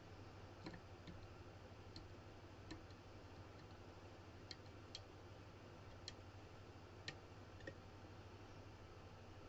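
Faint, irregular small clicks of a hook pick working the pins inside a CX5 lock cylinder, about a dozen over several seconds, over a steady low hum.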